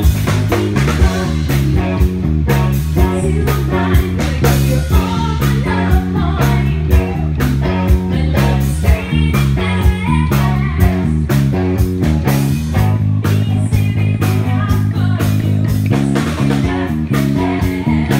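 Live band playing a pop-reggae cover: electric bass line, drum kit and electric guitar, with a woman singing into a microphone. Loud and steady, the bass holding one long note about sixteen seconds in.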